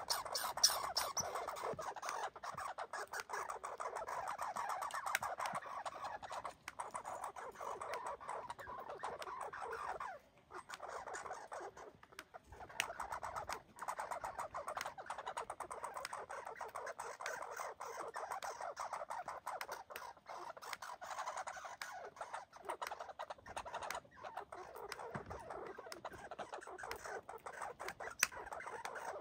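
American red squirrel chattering: a long, fast rattling call that runs on with short breaks, with a few sharp clicks over it.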